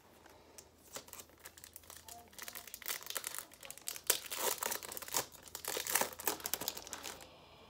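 Foil trading-card pack wrappers crinkling and rustling as hands handle them, with cards being sorted. Irregular crackles that grow busiest in the middle and die away near the end.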